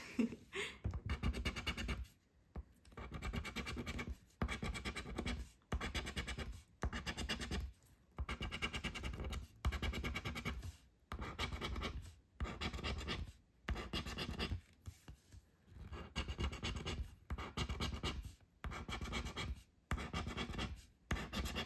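A coin scraping the scratch-off coating from a paper lottery ticket on a wooden table, in runs of about a second or more with short pauses between.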